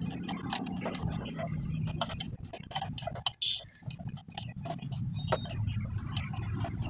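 Hand tools clicking and clinking against metal as the cylinder-head nuts of a Bajaj Discover motorcycle engine are loosened, with many short, irregular clicks.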